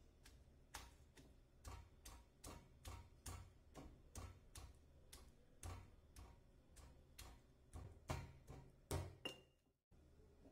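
Stone pestle pounding whole coriander seeds in a stone mortar: steady knocks about two to three a second, louder near the end, then stopping.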